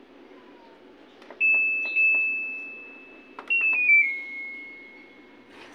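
Top-loading washing machine's touch control panel beeping: two single beeps as buttons are pressed, then a short falling run of tones as the wash cycle is started. Water starts rushing into the drum right at the end.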